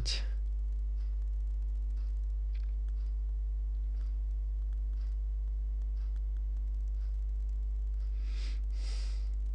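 Steady electrical mains hum with a buzz of evenly spaced overtones, joined by faint scattered clicks. A brief soft hiss comes near the end.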